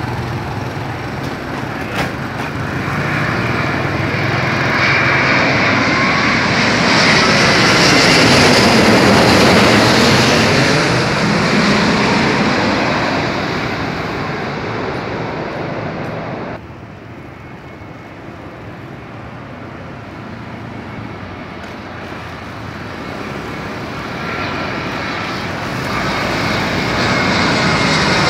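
Twin-engine jet airliner passing low overhead on landing approach: a loud jet roar swelling to a peak about nine seconds in, with a sweeping, phasing whoosh as it goes over. The sound drops off abruptly about two-thirds through, and near the end a second airliner's roar builds as it comes in low overhead.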